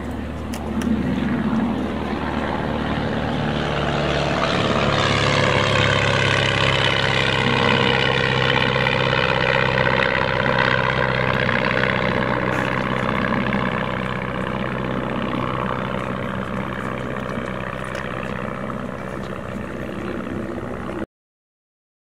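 Small aircraft's engine passing overhead, swelling to its loudest about five seconds in and slowly fading, then cutting off suddenly near the end.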